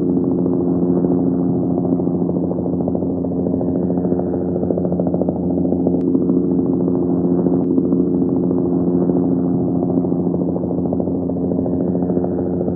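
Helicopter heard from a distance: a steady drone with the fast, even chop of the rotor blades, holding at one level throughout.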